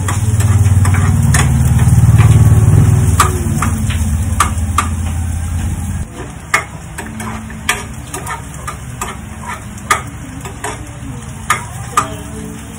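Oil sizzling in a frying pan on a gas stove while a metal spatula stirs and scrapes, tapping against the pan many times. A loud low hum runs under the first half and cuts off abruptly about halfway through.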